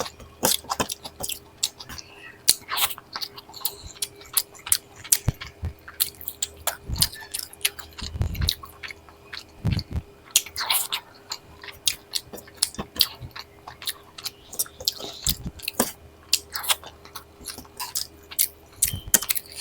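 Close-miked chewing and biting of food, full of short, crisp crunching clicks, with a few low soft thuds in between.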